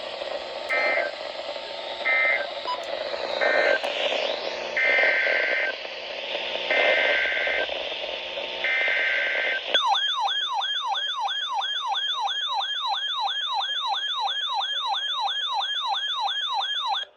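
Emergency Alert System data bursts from a weather radio: six harsh two-pitch digital bursts over radio hiss, the later three longer. About ten seconds in, a loud warbling siren-like alert tone starts, sweeping up and down about three times a second, and cuts off suddenly at the end: the alarm that announces a new warning.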